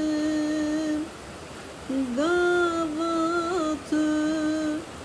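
A woman singing a slow Kurdish song in long held notes with small ornamental turns. She breaks off for about a second near the start, then comes back in on a rising note.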